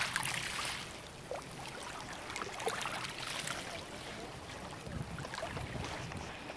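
Shallow marsh water sloshing and splashing as people wade and scoop through it, with small scattered splashes and a brief louder splash or rustle at the very start.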